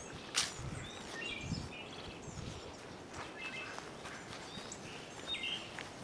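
Woodland birds chirping, with many short, repeated calls, some gliding in pitch. Faint footsteps on the trail's leaf litter, and one sharp click about half a second in.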